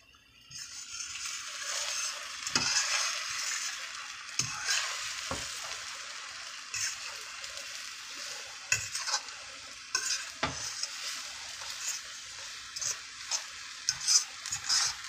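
Scrambled eggs sizzling in a metal frying pan while a fork stirs and turns them, the fork clicking and scraping against the pan now and then. The eggs are almost cooked.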